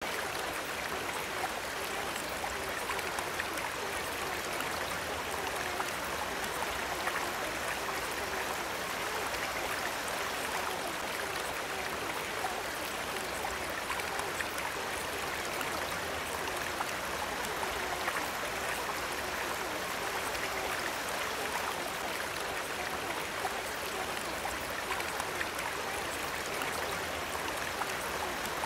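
Steady, unbroken sound of running water.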